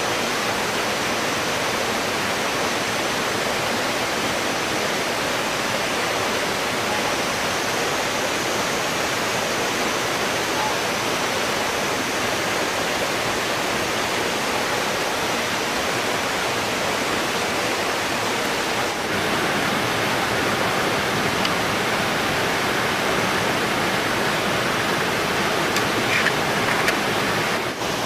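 Waterfall's falling water rushing steadily, a dense, even hiss that barely changes.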